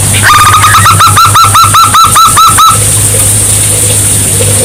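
Zebra dove (perkutut) singing a quick run of about a dozen clipped cooing notes lasting a little over two seconds, over a steady low hum and hiss.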